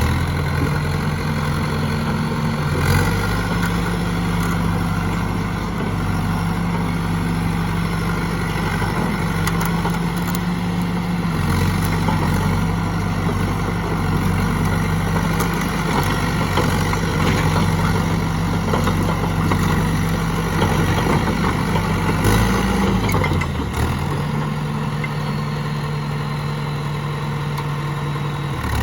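Diesel engine of a John Deere 450C loader backhoe running steadily. Its speed shifts a few times, with a short drop and recovery about two-thirds of the way through, and there are a few sharp knocks.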